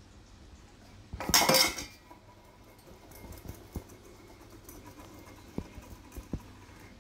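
A stainless steel bowl clatters on a tiled floor for about half a second, a little over a second in, followed by a few soft knocks.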